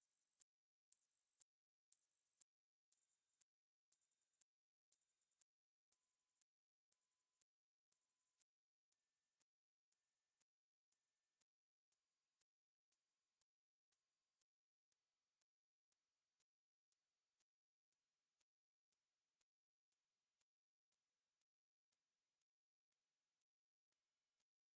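Electronically generated pure sine test tones, high-pitched beeps about half a second long, one per second. They come in threes, each group a semitone higher than the last, climbing from C9 (about 8.4 kHz).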